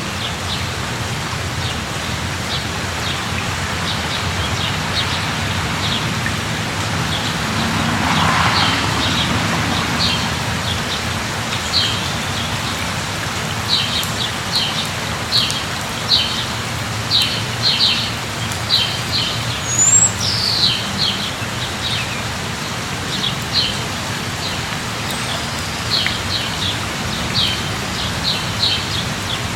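Steady rain falling, with a bird chirping in short, repeated notes over it, more often in the second half. A brief swell of louder noise about eight seconds in.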